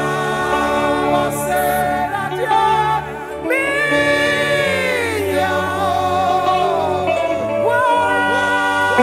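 Gospel worship music: singing with long held and sliding notes over steady, sustained low accompaniment.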